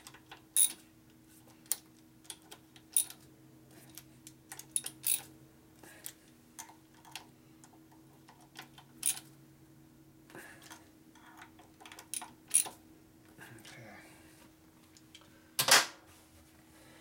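Hand ratchet and socket going back over bolts on a motorcycle engine: scattered metal clicks and clinks, with a louder clank near the end, over a faint steady hum.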